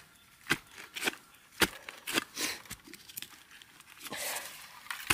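A wooden-handled digging tool striking into soil several times while digging around a bamboo shoot, each strike a short sharp jab. Then, toward the end, hands scrape and pull loose earth out of the hole.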